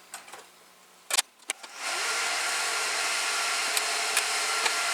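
A few light clicks, then about two seconds in the cooling fans of a Gigabyte R180-F34 1U rack server spin up at power-on to a loud, steady rushing whoosh that holds.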